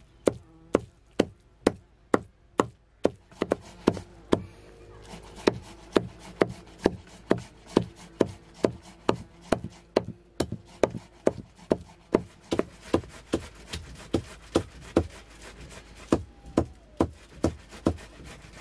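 Steady chopping, a blade striking on wood over and over, about two to two and a half strikes a second, each strike ringing briefly.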